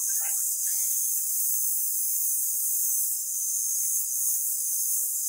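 Angle grinder with an abrasive disc cutting into a forged steel axe blank: a steady high hiss.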